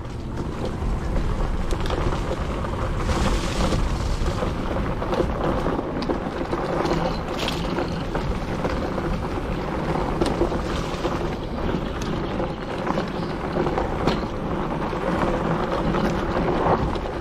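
Electric bike ridden along a dirt woodland trail: steady wind noise on the microphone over the rumble of the tyres on the track, with scattered knocks and rattles from bumps.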